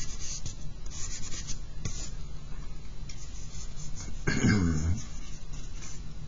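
Charcoal scratching and rubbing on drawing paper in short, irregular strokes. A brief low voice sound falls in pitch about four seconds in.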